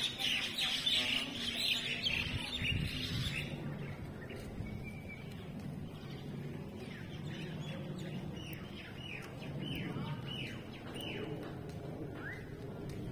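Birds chirping: a quick run of short high calls at first, then after a lull a series of about a dozen short calls that each sweep downward in pitch, roughly two a second, over a low steady background hum.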